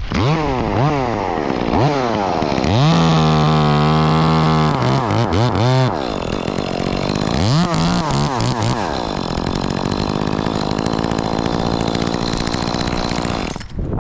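Chainsaw revving in quick blips, then held at full throttle for a couple of seconds and revved again as it cuts through the tree top, then running steadily before cutting off abruptly near the end.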